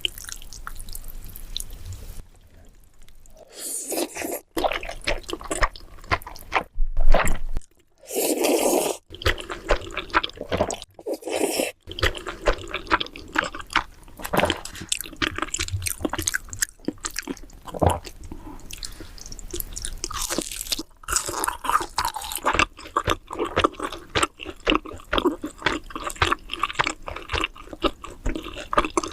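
Close-miked, wet chewing of black bean noodles, a dense run of irregular squishy mouth clicks and smacks, broken by several sudden cuts between clips.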